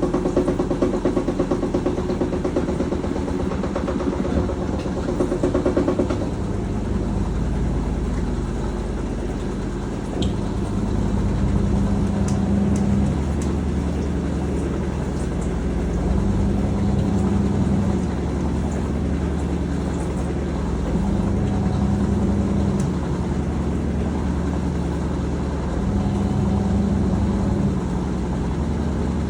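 Teco TWM100TAB top-load agitator washing machine running mid-cycle. A pulsing, pitched hum stops about six seconds in, and the machine's motor then swells in short surges roughly every five seconds.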